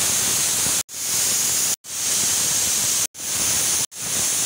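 Stovetop pressure cooker whistling: steam hissing loudly out past the weighted vent on the lid, in several back-to-back blasts that each cut off abruptly. Each whistle marks the cooker at full pressure, the whistles being counted to time the cooking.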